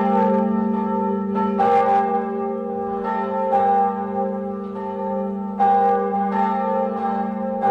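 A bell struck again every second or two, its tones ringing on over a steady low drone, as the opening of a soundtrack.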